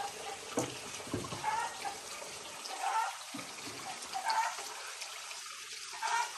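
Water trickling and dribbling, with a few short, faint calls in between.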